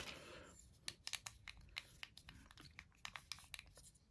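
Faint crinkling and scattered small clicks of cardboard and plastic packaging being handled and slid apart.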